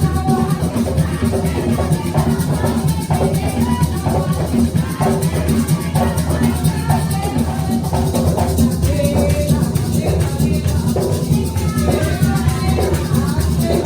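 Puerto Rican bomba music: drums with a maraca playing a continuous rhythm.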